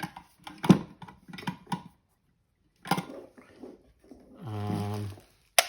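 Hard plastic parts of a desoldering station being handled and set down: a run of separate knocks and clicks, the loudest about a second in, with a sharp click near the end.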